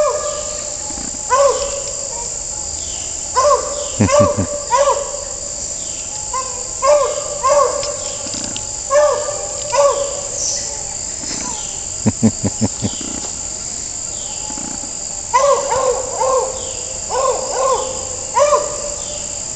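A beagle baying repeatedly in the distance: short arching 'aroo' calls in bunches of two or three, every second or two, with a pause near the middle. Under it, a steady high insect chorus of crickets.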